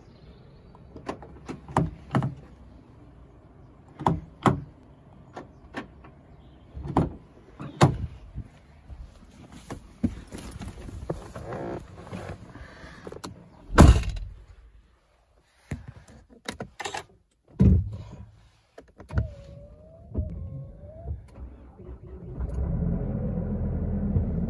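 A car being entered and started: door-handle and latch clicks, the door opening and then shutting with a heavy thud about 14 seconds in, more clicks and a short wavering electronic tone, then the engine starting on the push button about 22 seconds in and running at a raised idle near 3,000 rpm.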